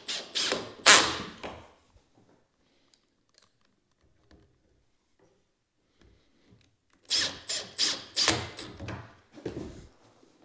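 A drill driving screws into wooden door jamb extensions in short bursts, with knocks: a quick run of bursts at the start, several seconds of quiet, then another run about seven seconds in.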